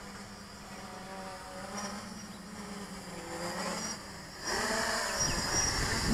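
Quadcopter's brushless motors and 8x4.5 two-blade propellers buzzing in flight, the pitch rising and falling as the throttle changes. The buzz gets louder about four and a half seconds in.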